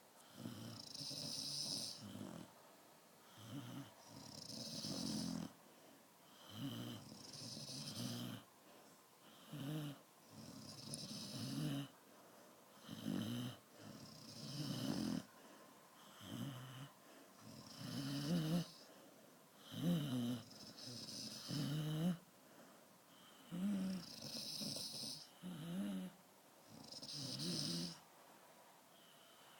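A Dalmatian snoring in its sleep, a rattling snore on each breath, one every couple of seconds.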